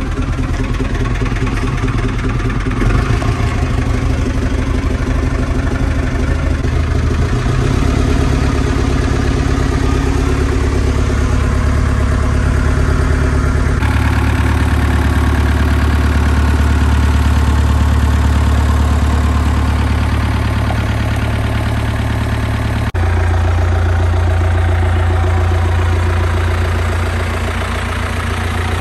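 1977 International Harvester 574's four-cylinder diesel engine idling steadily in freezing weather. It is heard first from inside the cab and then from beside the tractor, the sound changing abruptly about halfway through and again later on.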